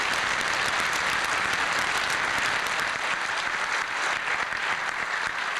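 Audience applauding: steady clapping from many hands that eases a little near the end.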